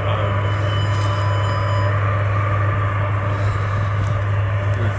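Boeing 747-400's jet engines running at taxi power: a steady low rumble with a faint high whine over it.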